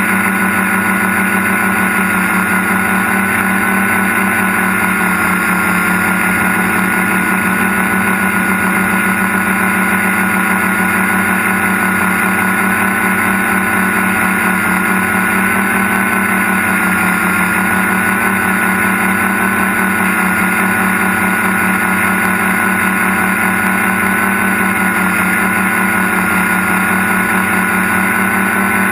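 Tricopter's three electric motors and propellers running at a steady throttle, heard from its onboard camera: an even buzzing whine with a high tone that holds steady while the craft cruises on GPS return-to-home.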